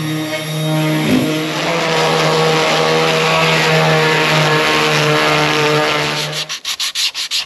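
Electric router running steadily with a bowl-and-tray bit, clearing the bottom of a wooden ashtray bowl. About six and a half seconds in it stops and gives way to fast back-and-forth rubbing strokes of hand sanding.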